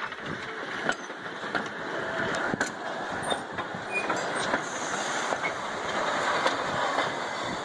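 Narrow-gauge wooden passenger carriages rolling slowly past at walking pace behind a steam locomotive: a steady rumble of wheels on rail, with scattered clicks and knocks.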